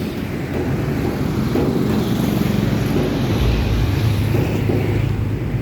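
An engine running steadily, with a low, rapid, even pulse.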